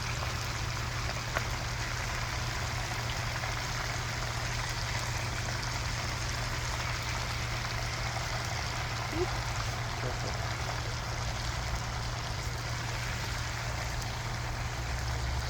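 Whole parrot fish deep-frying in a pot of hot oil: a steady sizzling hiss, with a constant low hum underneath.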